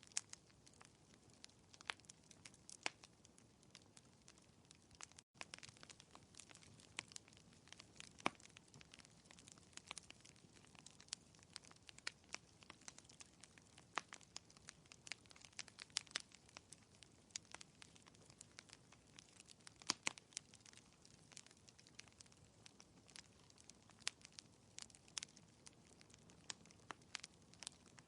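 Wood fire crackling in a fireplace: quiet, with irregular sharp pops and snaps over a soft low hiss. It cuts out for an instant about five seconds in.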